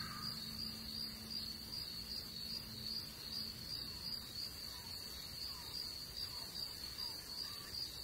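Insects trilling: a steady, unbroken high-pitched trill, with a few faint short falling chirps about halfway through.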